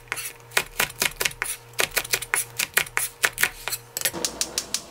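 Chef's knife slicing cheongyang chili peppers on a plastic cutting board: quick, even knife taps, about five a second, stopping about four seconds in.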